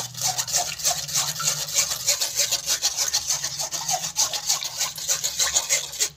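A spoon scraping guava purée through a metal mesh strainer in quick, repeated rubbing strokes, pressing the pulp through and holding back the many seeds.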